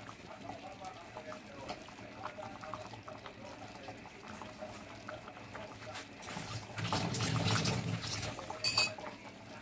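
Thick rice porridge (arroz caldo) bubbling in a pot, with soft plops and gurgles that grow louder for a couple of seconds past the middle. A brief sharp clink comes near the end.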